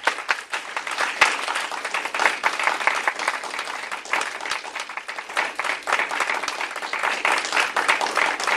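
Audience applauding: many hands clapping steadily, loud and continuous.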